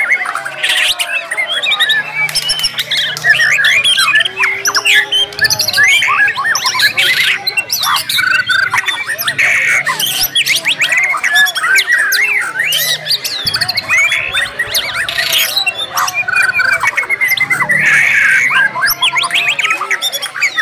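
Several white-rumped shamas (murai batu) singing at once in a dense, overlapping chorus of fast whistles, trills and harsh squawking notes, like birds competing at a songbird contest.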